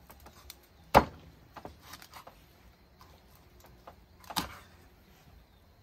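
Two sharp knocks about three and a half seconds apart, the first the louder, with a few faint clicks and taps between them.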